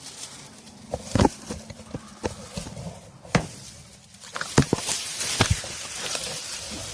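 Irregular clicks and knocks of hand tools and parts being handled, with a scraping rustle building about two-thirds of the way in.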